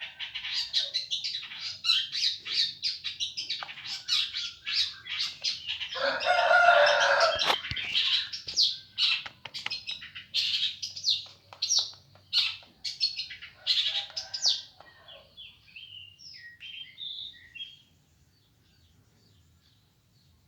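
White-rumped shama (murai batu) calling in rapid, dense runs of short chirps and clicks, with a louder, harsher stretch about six seconds in; the calls thin out after about fifteen seconds and stop.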